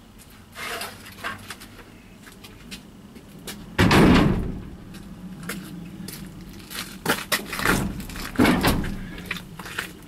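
Wooden pallets being dropped and slid onto a stack in a pickup truck bed: a few wooden bangs and clatters, the loudest about four seconds in.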